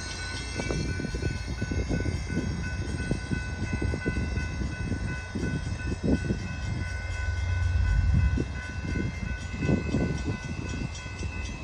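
Railroad grade crossing's electronic warning bell (e-bell) ringing steadily with a high, multi-toned ring. Under it runs a low rumble from a train, broken by short irregular knocks.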